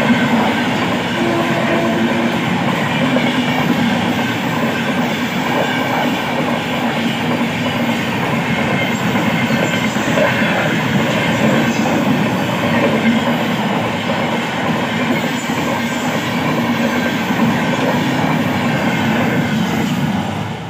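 Passenger train passing close by at a level crossing: a steady loud rumble and clatter of coach wheels on the track. It drops away suddenly at the very end as the last coach clears the crossing.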